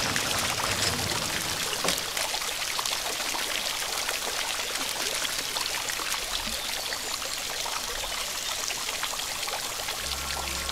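Water pouring and splashing in a steady rush, a sound effect for cascading water. Faint low musical tones sit under it just after the start, and music comes in near the end.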